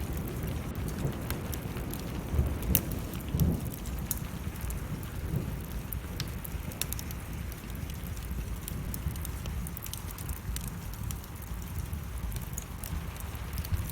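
Wood fire crackling with scattered sharp pops, over steady rain and a low rumble of thunder that swells about three seconds in.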